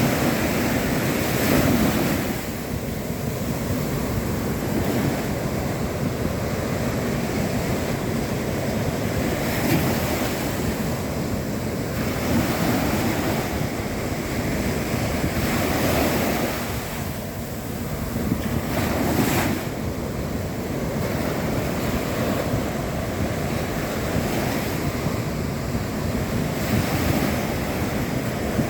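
Sea waves breaking and washing on a shore, a continuous surf hiss that swells every few seconds as each wave comes in, with some wind on the microphone.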